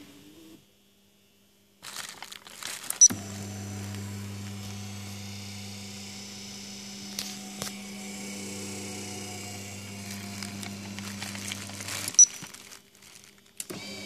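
A short electronic beep, then a steady electric motor hum with a low buzz that runs about nine seconds and stops at a second beep: a Human Touch massage chair's motor switched on and off from its control board. Light plastic crinkling and handling clicks come and go.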